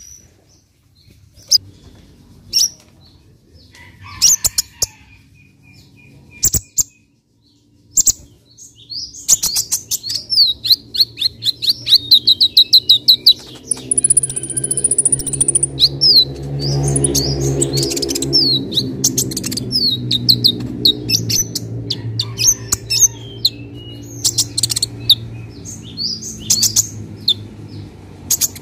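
Caged male purple-throated sunbird (kolibri ninja) singing. It gives scattered single high chirps at first, then, about a third of the way in, a fast, continuous run of sharp high chirps and trills. A low hum swells and fades in the background around the middle.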